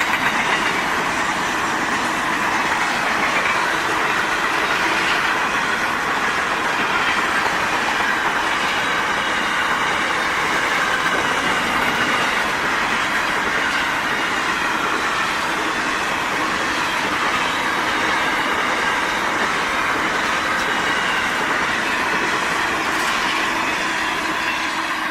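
Freight grain train's wagons rolling steadily past, a continuous rush of steel wheels on rail.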